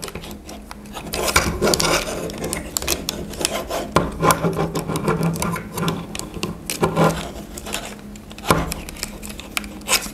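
Plastic parts of a Transformers Studio Series Starscream action figure rubbing, scraping and clicking as it is handled and twisted through its transformation. The rubbing goes on throughout, with many small sharp clicks of joints and tabs.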